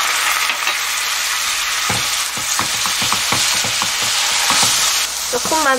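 Soy sauce and syrup sizzling in the hot oil of a frying pan of dried young hairtail. From about two seconds in, a silicone spatula stirs and scrapes the pan in a quick run of ticks.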